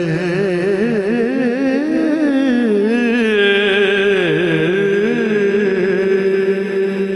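A male naat reciter sings one long, ornamented held vowel with no words, his voice wavering up and down, over a steady low drone. About two-thirds of the way through, the wavering eases into a steadier held note.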